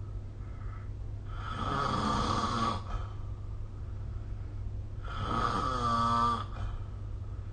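A person snoring in sleep: two snores about four seconds apart, each lasting about a second and a half, the second with a buzzing pitched tone. A steady low hum runs underneath.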